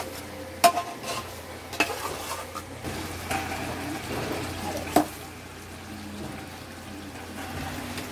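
A spoon stirring thick chicken masala in an aluminium pot, knocking sharply against the pot a few times, the loudest about five seconds in. Under it the gravy sizzles faintly as it cooks.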